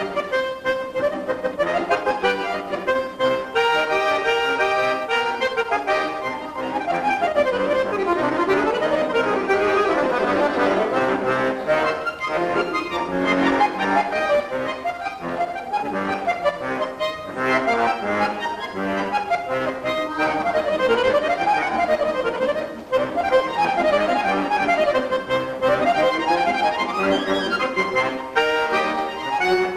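Solo bayan, a Russian chromatic button accordion, playing a lively piece with fast runs of notes sweeping repeatedly up and down.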